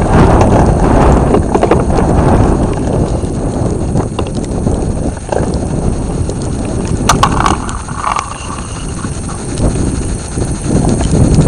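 Wind buffeting the microphone: a loud, gusting low rumble, with a few sharp clicks a little past the middle.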